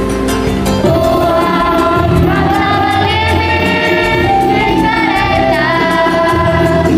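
A children's school choir singing in unison over an instrumental backing with a steady beat. A new, louder phrase begins about a second in.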